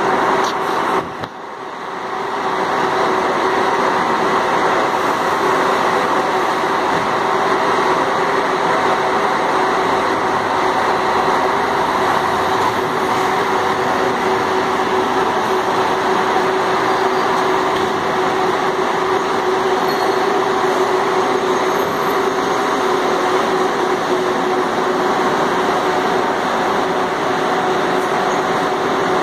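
Large bus diesel engine running steadily at idle close by: a continuous drone with a constant hum, dipping briefly about a second in.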